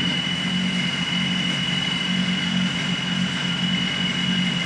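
Suzuki DS80's small two-stroke single-cylinder engine idling steadily on a dynamometer, with a steady high-pitched whine alongside.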